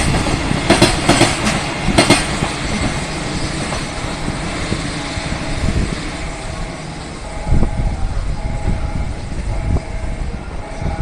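JR Freight container train passing, its wheels clicking over rail joints in the first two seconds, then a steady rumble that gradually fades as the train moves away, with one short thump partway through.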